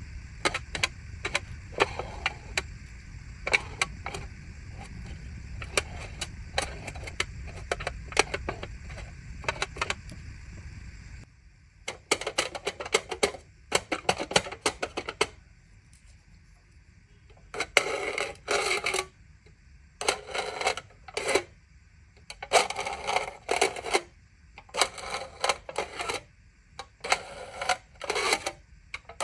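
Aluminium foil being handled: many quick crackling clicks and taps at first, then, from about eleven seconds in, repeated short bursts of crinkling, each about half a second to a second long, with quiet gaps between them.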